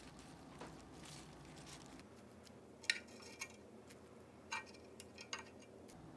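Chopsticks clicking and clinking lightly against a ceramic bowl as lettuce and grilled pork are laid onto rice noodles: about five short, faint clicks in the second half.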